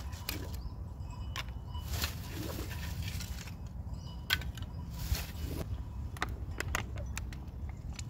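Scattered sharp clicks and short rustles of dry kindling sticks and a plastic bag being handled at a fire pit, over a low steady rumble.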